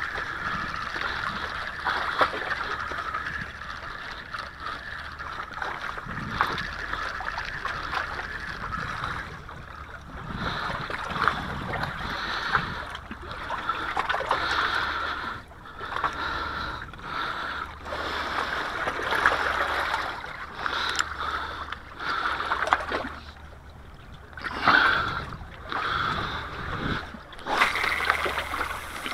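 Small waves lapping and splashing against shoreline rocks, in uneven surges that swell and fade every second or two.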